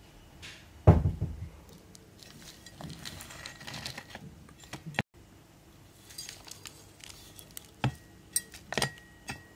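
Potting soil being scooped with a hand trowel and tipped around an onion bulb in a plastic pot: a heavy thump about a second in, a few seconds of soil pouring and scraping, then several short sharp knocks of the trowel against the pot near the end.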